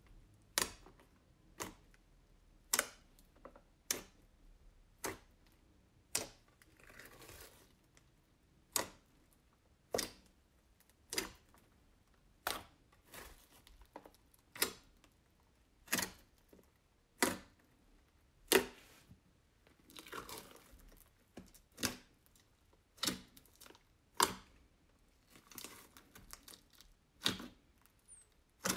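Fluffy slime being poked and pulled by hand: a sharp pop about once a second as the fingers press into it, with a few longer, softer crackly tearing sounds as it is stretched.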